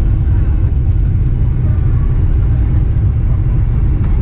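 Cabin noise of a Boeing 767-300 rolling on the ground after landing: a steady, loud low rumble from the wheels on the tarmac and the Rolls-Royce engines, with faint irregular high ticks over it.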